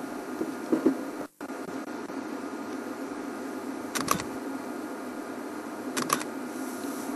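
Steady buzzing hum from the safari game-drive vehicle, with two short bursts of clicking about four and six seconds in. The sound cuts out completely for a moment just over a second in.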